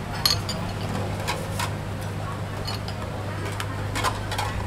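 Bowls and utensils clinking and knocking at a noodle stall counter, a few separate knocks spread through, over a steady low hum.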